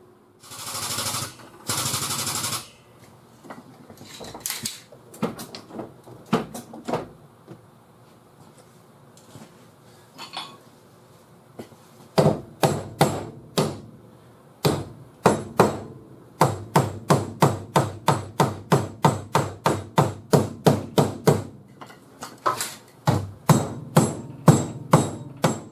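A hammer striking metal over and over, about three sharp ringing blows a second, in runs through the second half. The runs are preceded by a few scattered single knocks and, right at the start, two short rushing noises.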